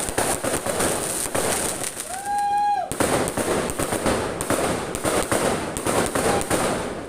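Fireworks crackling and popping in a dense, continuous barrage. A brief held high tone sounds a little over two seconds in.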